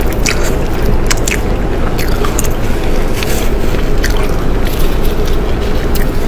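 Close-miked chewing and biting of braised pork tail: mouth sounds with irregular sharp clicks.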